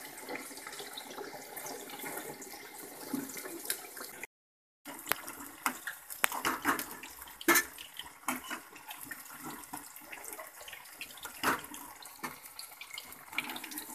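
Paneer deep-frying in hot oil in a steel kadai: a steady sizzle with scattered sharp crackles and pops. The sound drops out completely for about half a second a little after four seconds in.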